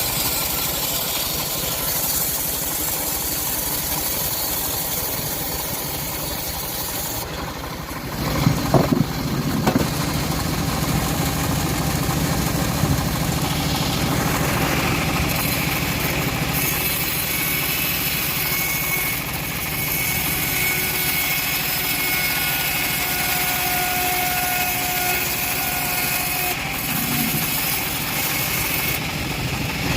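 Chainsaw running steadily as it cuts through teak wood, surging louder for a moment about eight seconds in.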